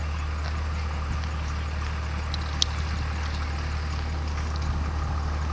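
Steady low rumble of an idling engine, with one sharp click about two and a half seconds in.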